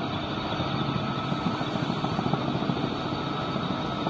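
A heavy engine running steadily, with a rapid low pulsing under a constant high whine.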